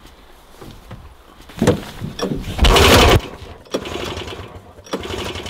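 Sachs snowmobile engine being pull-started with its recoil starter: several separate bursts of cranking, the longest and loudest lasting about half a second near the middle, without the engine settling into a steady run.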